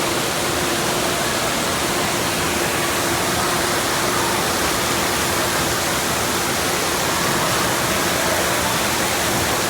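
Steady rush of falling and splashing water, an even hiss with no breaks, typical of an indoor water park.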